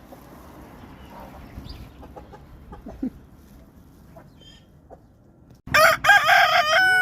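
A rooster crowing: one loud, long call that starts suddenly near the end, after several seconds of faint background with a few small clicks.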